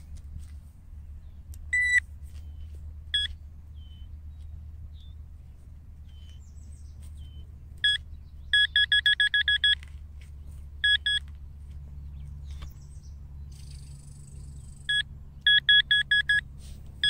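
Electronic beeping from a metal detector or pinpointer homing in on a buried metal target in the dig hole: single beeps at first, then quick runs of about six beeps a second.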